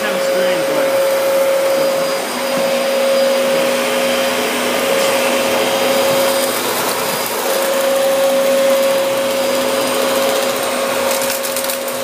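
Dyson DC14 upright vacuum cleaner running while being pushed over a bare concrete floor: a steady motor whine at one pitch over a constant rush of air.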